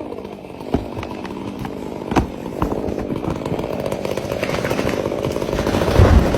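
Chainsaw running, growing steadily louder, with two sharp knocks, one under a second in and one about two seconds in.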